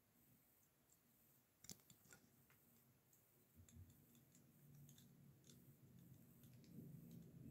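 Near silence with scattered faint clicks and taps of Lego bricks being handled and pressed together, and a faint low hum that grows slightly louder in the second half.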